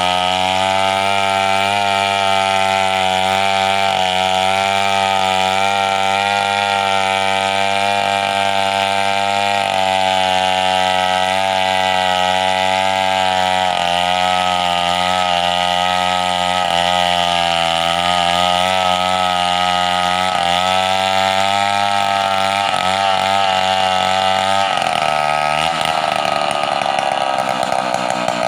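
Chainsaw engine running at a steady speed, its pitch dipping briefly several times in the second half. Near the end the sound changes and its lowest notes drop away.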